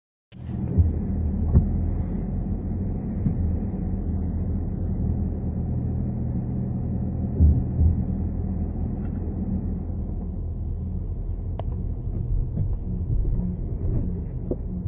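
Steady low droning rumble from an Audi A6 4G quattro on the move, with a few light knocks: the noise of a defective wheel bearing.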